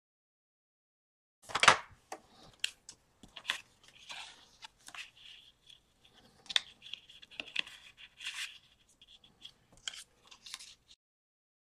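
Sheets of paper and cardstock handled on a tabletop: short, irregular rustles, slides and crinkles, the loudest a sharp rustle about two seconds in.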